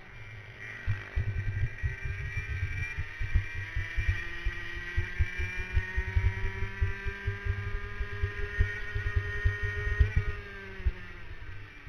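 Racing kart engine pulling hard out of a corner, its pitch climbing steadily for about ten seconds down a straight, then dropping near the end as the driver lifts for the next bend. Heavy wind buffeting thumps on the onboard microphone throughout.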